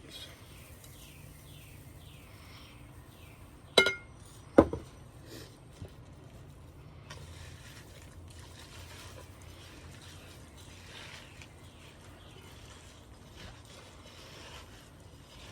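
Kitchenware clinking twice, sharp and ringing, about four seconds in and less than a second apart, then faint handling noise while ingredients are put together in a bowl.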